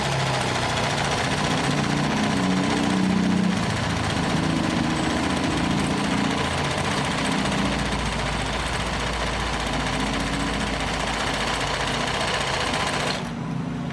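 Janome NS 385 sewing machine, driven by its external motor, running at a steady speed while sewing a zigzag stitch at a short stitch setting. It stops abruptly about 13 seconds in.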